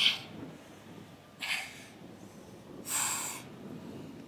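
A woman breathing out hard with each ab crunch, three sharp exhales about a second and a half apart, the first and the last the loudest.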